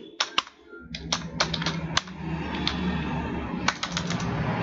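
Keystrokes on a laptop keyboard: quick irregular clicks as text is typed, over a steady background noise that comes in about a second in.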